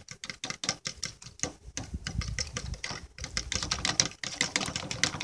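Eggs being beaten in a bowl with a utensil: quick, rapid clicks as it strikes the side of the bowl, about seven a second.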